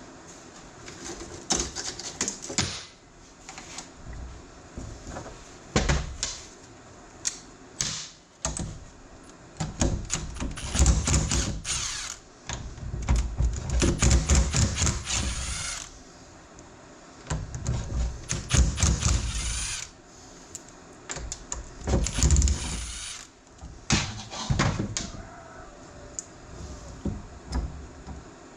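Hand tools and metal parts clicking, knocking and clattering as a tractor power-steering valve is taken apart, with several louder stretches of one to three seconds of steady tool noise.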